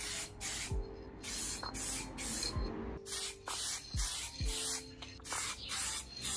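Aerosol spray-paint can hissing in many short bursts, about two a second, as paint goes onto a mountain bike handlebar. A lofi hip-hop beat plays underneath.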